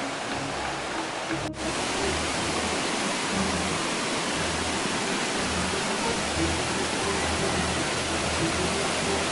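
Steady rush of falling water from a mountain waterfall, with background music running under it. About a second and a half in there is a brief dropout, after which the rush is a little louder.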